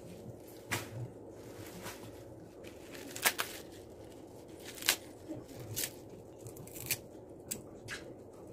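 Fresh curly kale leaves being torn and stripped off their stems by hand: a series of short, crisp rips and snaps, the loudest about three and five seconds in, over a steady low hum.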